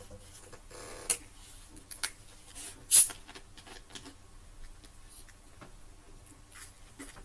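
A few short clicks and small rustling knocks, the loudest about three seconds in, over faint room noise.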